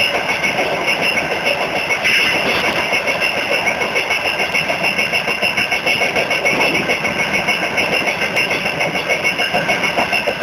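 Freight train running: wagons and wheels on the rails make a steady rumble and rattle with a fast, even pulse.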